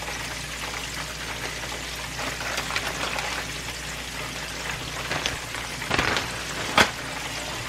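Chicken wings frying in a skillet of oil: a steady sizzle, with a few sharp clicks in the second half, the loudest near the end.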